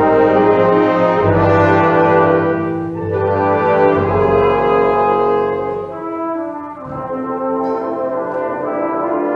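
A brass-led wind band playing music in held, full chords that change every second or so, easing a little in loudness about six seconds in.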